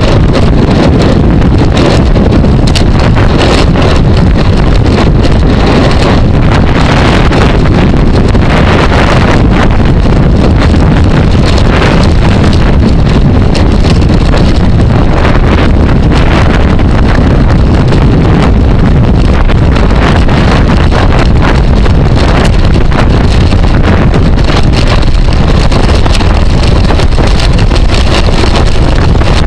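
Heavy wind rumble buffeting a camera microphone carried on a bicycle at racing speed, steady and loud.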